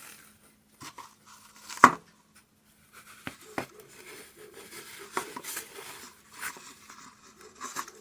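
Ribbon rustling and scraping as it is wound tightly around a foam wreath form, with scattered soft taps of handling and one sharp click about two seconds in.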